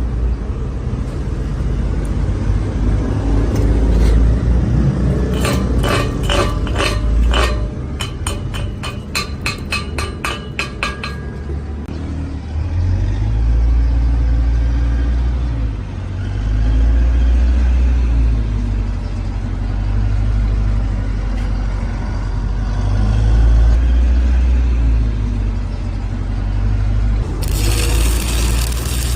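Steel being struck rapidly with ringing metallic tones, about four strikes a second for several seconds, typical of chipping slag off a stick weld on steel plate, over a steady low rumble. A short burst of high hissing comes near the end.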